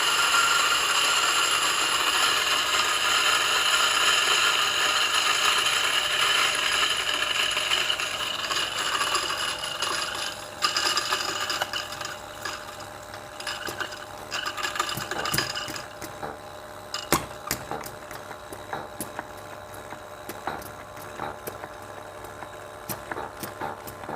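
DF64 espresso grinder's motor and 64 mm stainless steel flat burrs grinding a 10 g dose of coffee beans: a steady whirring grind that thins out after about ten seconds as the dose runs through the burrs. It gives way to scattered clicks and ticks.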